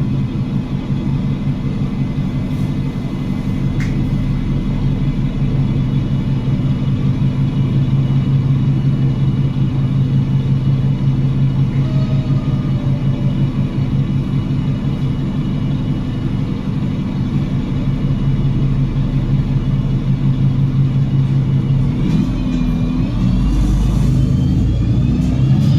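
Double-decker bus's Cummins L9 diesel engine and Voith DIWA automatic gearbox heard from on board: a steady low drone. About 22 seconds in, a rising whine joins it as the bus accelerates.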